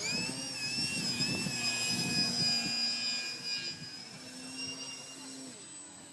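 Electric motor and propeller of a Techone SU-31 foam radio-controlled airplane whining in flight, dropping in pitch as the throttle comes back right at the start, then holding steady and fading as it flies off. Wind buffets the microphone underneath.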